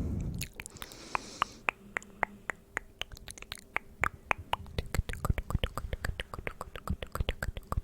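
ASMR mouth sounds: a short breath, then a run of wet mouth clicks and pops, spaced out at first and coming faster and denser from about halfway.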